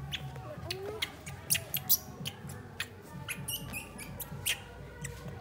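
Baby monkey giving short, sharp high squeaks, with a few clicks, bunched in the middle, over steady background music.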